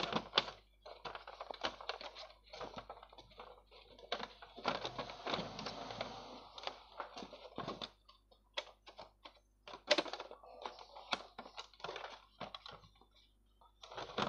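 Plastic paper tray of a Brother DCP-T710W ink tank printer being adjusted by hand: clicks, rattles and sliding scrapes as its guides and extension are moved. It is busiest between about four and seven seconds in, then comes down to separate single clicks.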